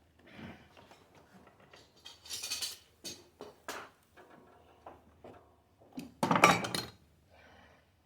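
Small metal parts and tools clinking and rattling: a string of sharp clicks, a rattling clatter about two seconds in, and a louder clatter about six seconds in.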